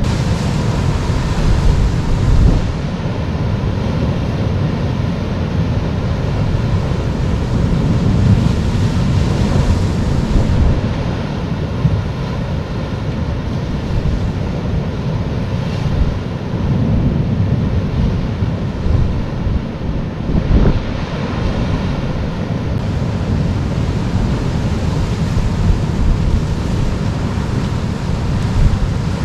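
Wind buffeting the microphone over the steady wash of sea surf breaking on rocks.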